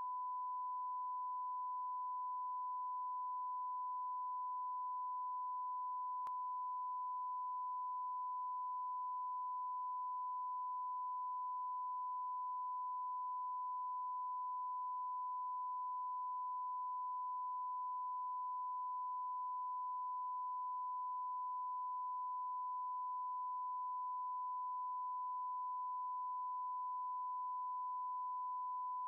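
A single steady electronic beep tone of one pitch, like a 1 kHz test tone, held without a break.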